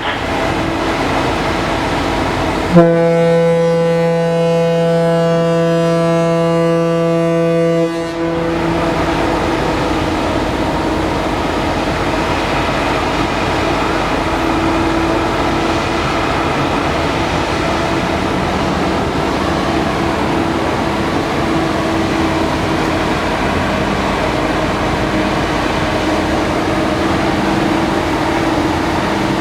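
The ferry MV Salish Heron's horn sounds one prolonged blast of about five seconds, the signal of a vessel leaving its berth. A steady low drone from the ship's machinery runs under and after it.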